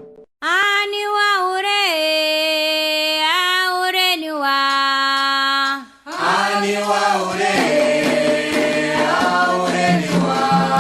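A single voice sings the opening line of a Candomblé ponto for Xangô unaccompanied, in long held notes. About six seconds in, drums and a group of voices come in together.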